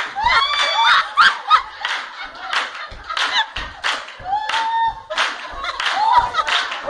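A small group clapping their hands, with excited voices calling out and crying over the claps.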